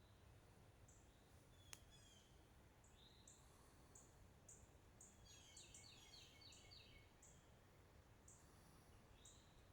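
Faint, high bird chirps repeating about twice a second, with a quick run of falling notes about five seconds in and a single sharp click about two seconds in.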